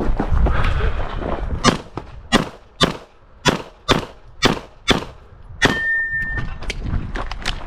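Handgun shots fired in quick succession on a practical-shooting stage, about a dozen shots roughly half a second apart, with short pauses between groups. About six seconds in, one shot is followed by a ringing tone lasting about a second.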